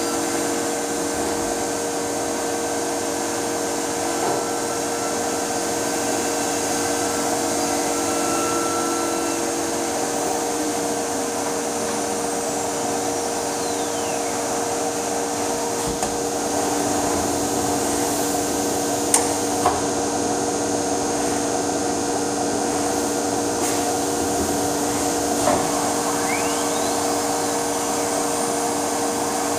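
CNC router running: a steady machine hum with a constant whining tone over a hiss. Faint gliding tones come and go twice, and two sharp clicks fall about two-thirds of the way through.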